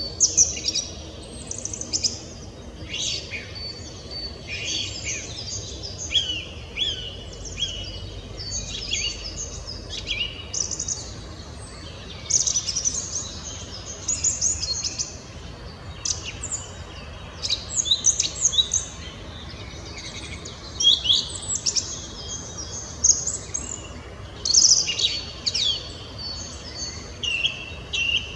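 Song thrush singing: short phrases of loud, clear notes, each phrase repeated several times over before the next, with a hard-sounding quality, including loud 'wii wii wii' and 'dülip dülip dülip' figures.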